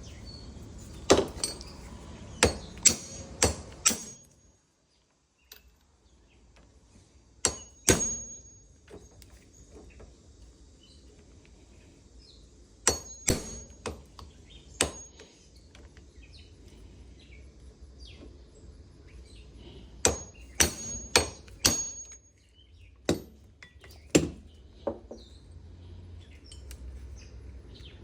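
Hammer blows on the steel steering-shaft universal joint, knocking its bearing caps out of the yoke. The strikes come in bunches of two to five with pauses between, and many leave a short metallic ring.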